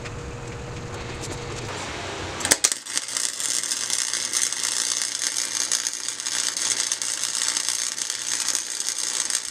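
Arc welding on scrap steel: a dense, sputtering crackle that starts with a sharp crack about two and a half seconds in and cuts off abruptly near the end.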